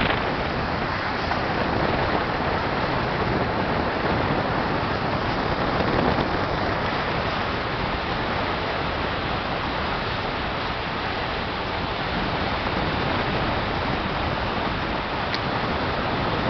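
Steady rushing noise of a motorboat under way, with water and wind noise running evenly and no distinct events.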